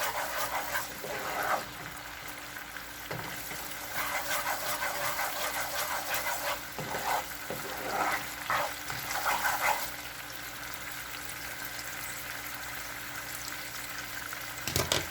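Garlic and soy–oyster sauce bubbling and sizzling in a hot pan, being stirred in spells through roughly the first ten seconds. After that the sauce keeps sizzling on its own.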